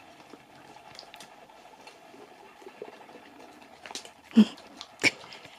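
A Siberian husky licking a carob dog Easter egg held in a hand: soft, wet licking and lapping ticks, with two short louder sounds near the end.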